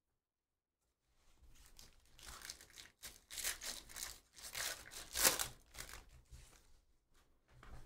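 A foil trading-card pack wrapper being torn open and crinkled by hand. It comes as a run of crackly rips and rustles after about a second of quiet, with the loudest rip a little past the middle.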